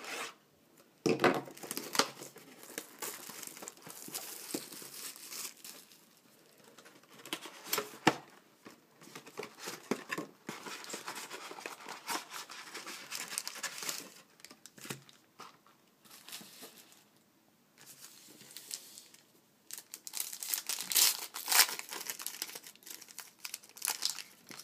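Packaging of a box of 2011 Panini Certified football cards being torn open and crinkled: irregular bursts of tearing and crackling wrapper with short pauses between.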